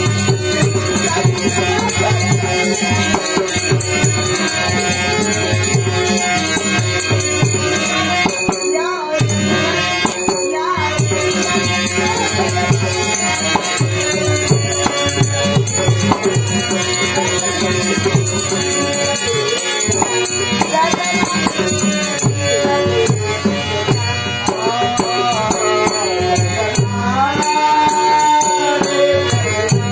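Dashavatar folk-theatre music: dense hand-drum strokes and jingling rattle-like percussion over steady held tones. A melodic line bends up and down near the end.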